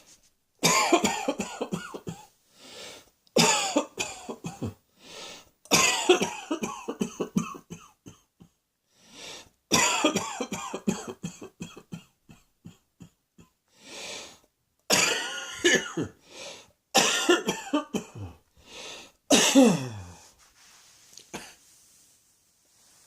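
A person coughing in about seven hard fits, each a rapid run of coughs, with quieter breaths drawn in between. The last fit trails off in a falling voice.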